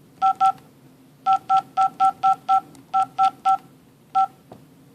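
2GIG GoControl alarm panel's touchscreen giving short electronic key-press beeps, each two tones sounding together, as its buttons are tapped. About a dozen beeps come in quick clusters: two, then six in an even run, then three, then a single one near the end.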